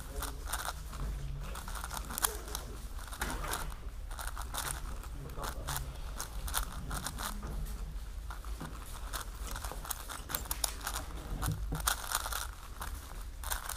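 MoYu AoChuang GTS 5x5 M speedcube being turned very fast by hand: a dense, continuous run of small plastic clicks and clacks as its layers snap round.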